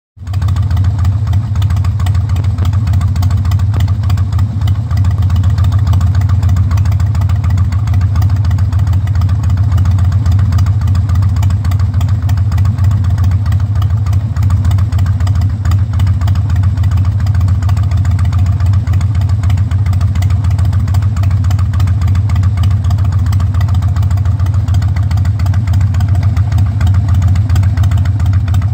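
Harley-Davidson Dyna Super Glide's air-cooled V-twin idling steadily: a loud, low-pitched run of rapid, even firing pulses that holds the same speed throughout.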